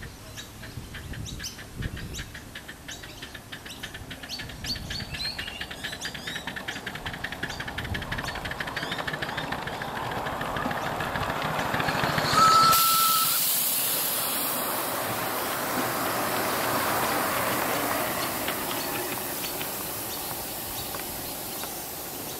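Miniature live-steam locomotive running: a quickening, growing run of exhaust chuffs as it approaches and passes, with birds chirping. About halfway through, a steady hiss of steam takes over and slowly fades.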